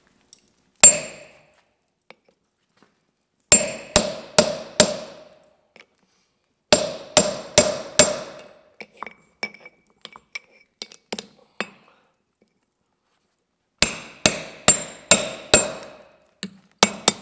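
Hammer blows on a hand punch driving a hole through red-hot steel plate on an anvil, each blow with a short metallic ring. The blows come in runs of four to six quick strikes, with a few lighter taps between the runs.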